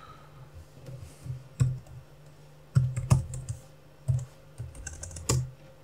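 Computer keyboard typing: about a dozen irregular keystrokes, some in quick little clusters.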